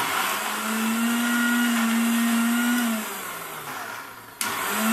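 Electric kitchen blender running, puréeing boiled dried chillies. It runs steadily for about three seconds, winds down with a falling hum, then starts again briefly near the end.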